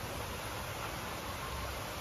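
Steady rush of a small waterfall, an even hiss of falling water.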